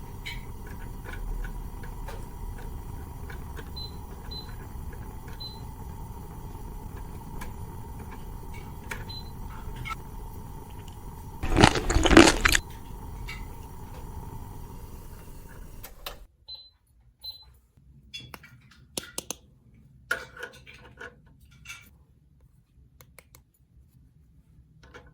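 Small hard plastic toy pieces being handled, clicking and rattling, with a louder clatter about twelve seconds in.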